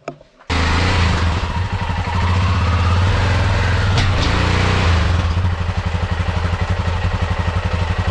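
Motorcycle engine running steadily inside a van's cargo bay, starting abruptly about half a second in, with a strong low rumble and regular firing pulses.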